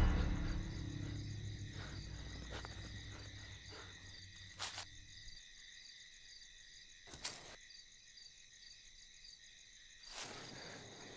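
Crickets chirping steadily in a night-time ambience. A low music drone fades out over the first five seconds, and two brief knocks come about five and seven seconds in.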